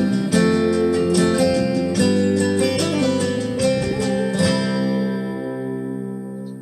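Acoustic guitar strumming the song's closing chords, then a last chord left ringing and dying away over the final two seconds.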